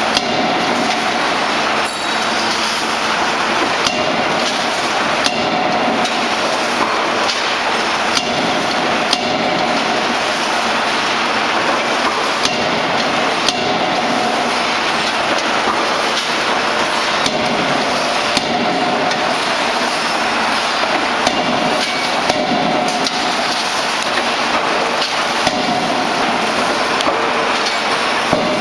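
C92K-25 CNC fully hydraulic closed-die forging hammer striking hot workpieces in its dies. Sharp blows come irregularly, about one every one to two seconds, over a constant loud noise.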